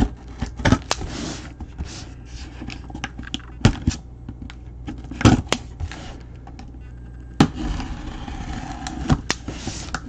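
A cardboard shipping box being cut open along its top seam with a box cutter and turned in the hands: scraping and rustling, with a few sharp knocks as the box is handled.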